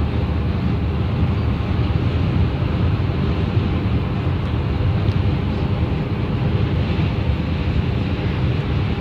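Steady road noise from a car cruising on a highway: tyre and engine rumble heard from inside the cabin.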